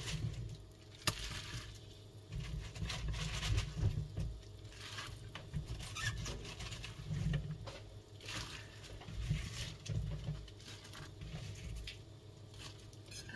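Chopped napa cabbage leaves going into a pot of soup, rustling and crackling in irregular bursts, with a low rumble underneath.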